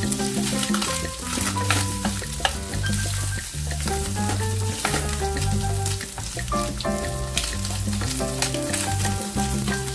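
Food sizzling as it fries in a pan, stirred with a wooden spoon that scrapes and taps against the pan many times. Background music with a bass line plays throughout.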